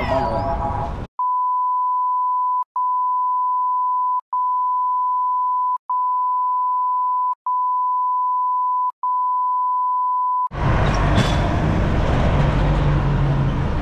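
A steady, high, single-pitched electronic beep tone about a second in replaces all other sound for roughly nine seconds, broken into six stretches of about a second and a half by brief gaps. Street sound with traffic and voices is heard before it and comes back about ten seconds in.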